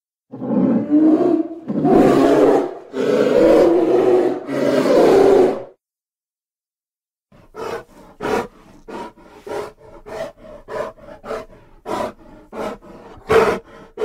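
Sound-effect roars made to stand for the extinct short-faced bear (Arctodus): four long, deep roars in quick succession. After a short pause comes a run of short huffing grunts, about two or three a second.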